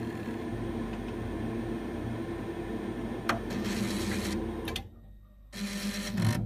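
Vaillant ecoTEC diverter valve's small actuator motor humming steadily as it drives the valve shaft back after the hot tap is closed, with a faint click about three seconds in. The hum cuts out near five seconds, comes back briefly, then stops.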